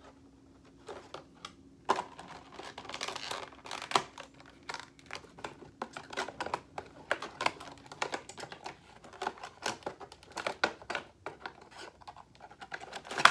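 Plastic packaging rustling and crinkling, with irregular sharp clicks and scrapes as a plastic tray and cardboard box are handled during the unboxing of a diecast model airliner.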